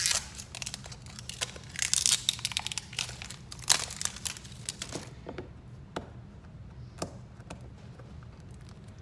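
Mystery-toy packaging being crinkled and torn open by hand, busiest in the first five seconds, then only a few scattered clicks and rustles.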